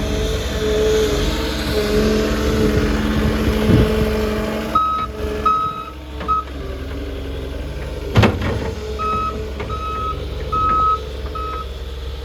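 Diesel engine of a 2022 John Deere 330G skid steer running, fuller for the first few seconds, then its backup alarm sounding short beeps at one pitch, three and then four. A single sharp clank comes about eight seconds in.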